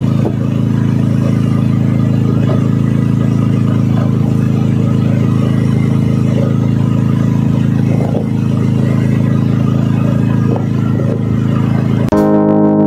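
A boat's engine running steadily at low revs, a constant low drone with several held hum tones. Near the end it gives way to music with piano notes.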